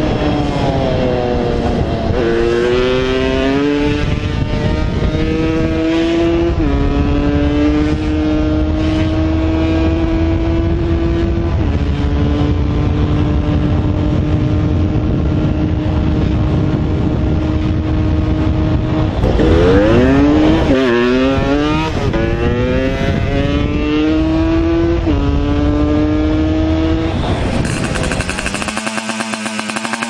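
Yamaha DT 200's single-cylinder two-stroke engine pulling hard through the gears, its pitch climbing and dropping at each upshift, three times in the first dozen seconds, then holding a steady cruise. About twenty seconds in it drops and winds up again through three more shifts. Near the end the sound cuts to a different, rougher engine recording.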